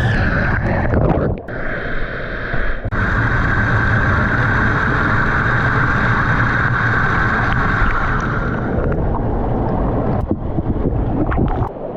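Loud, steady rush of a small waterfall pouring into a pool, close to the microphone, with a brief dip a little over a second in.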